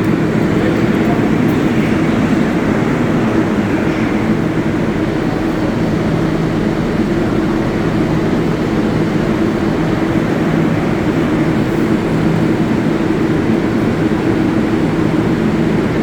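New York City Subway 7 train on the IRT Flushing Line, a steady, loud rumble with a low hum running through it.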